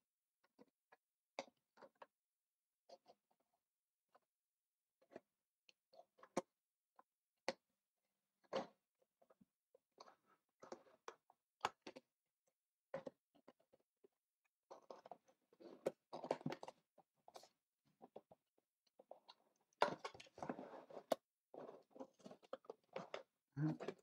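Small scattered clicks and scrapes of steel forceps worked into the end of a cardboard CPU retail box, prying at the inner case. Longer stretches of cardboard rubbing and rustling come in the second half.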